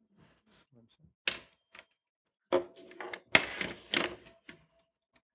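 Irregular clicks and knocks of a laptop keyboard being typed and tapped at the lectern, picked up by the lectern microphone, a handful of separate strokes with short gaps between them.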